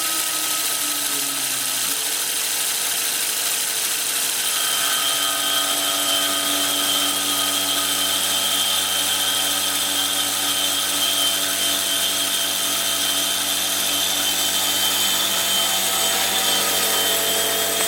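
Sieg-type mini mill converted to CNC running a milling cut: a steady machine whine from the spindle and drives. Its tones glide in the first couple of seconds, then a higher, steady whine joins about four and a half seconds in.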